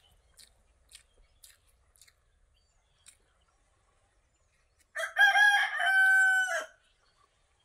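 A rooster crows once, loudly, about five seconds in: a two-second call that rises and then holds level before breaking off. Before it there are faint, scattered wet clicks and smacks of eating by hand.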